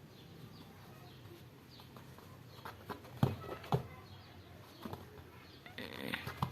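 Pet rabbit honking: a few short grunts, mostly about three to four seconds in, the sound a happy, excited rabbit makes.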